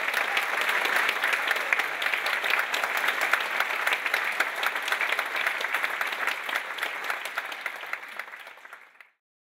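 Audience applauding after a live big band number. The clapping fades over the last couple of seconds and then cuts off sharply.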